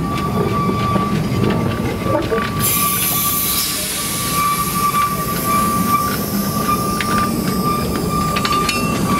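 Narrow gauge steam train running, with a low rumble and a thin, steady high-pitched squeal throughout. A loud hiss comes in suddenly about two and a half seconds in and carries on.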